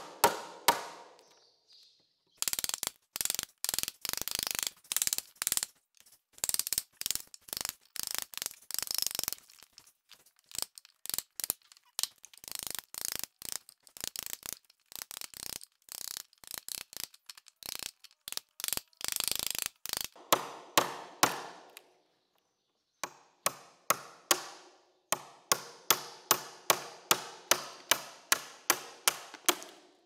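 Hammer blows on a wood chisel and on the board, knocking out the waste wood between saw kerfs to cut a notch in a pressure-treated board. Quick runs of blows at first, then sparser knocks, and near the end a steady tapping of about three blows a second.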